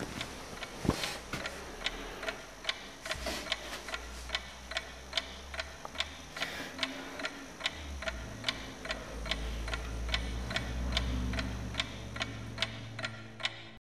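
A clock ticking steadily, about two ticks a second, over a low rumble that swells and fades twice.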